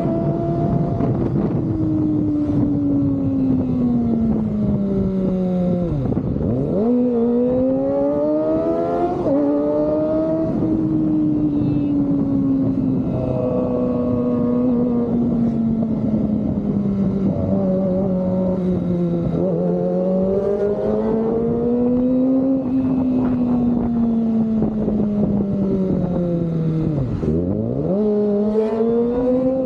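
Kawasaki ZX-25R's 250 cc inline-four engine through an Austin Racing aftermarket exhaust, riding under way. The engine revs rise and fall steadily, and twice, about six seconds in and near the end, the pitch drops sharply and climbs straight back.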